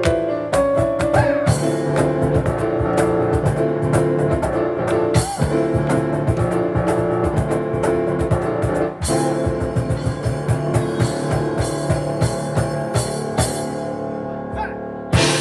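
Live piano and cajon duo playing a fast instrumental: dense piano chords over rapid cajon strikes, closing on one big accented hit near the end as the song finishes.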